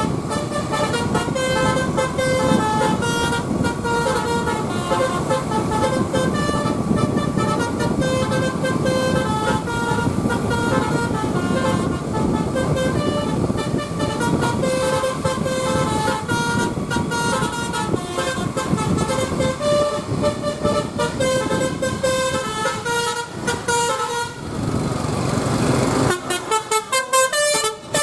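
A bus's telolet basuri multi-trumpet air horn plays a tune of stepped notes over engine and road rumble. Near the end the rumble drops away and the horn notes come in short, quick blasts.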